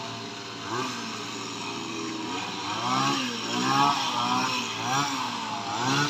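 Kamatsu HT230 two-stroke petrol hedge trimmer engine running and revving up and dropping back again and again.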